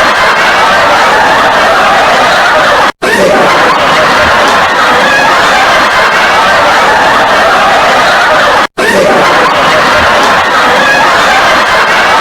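A group of people laughing loudly and without a pause, cut off for an instant twice, about three and nine seconds in.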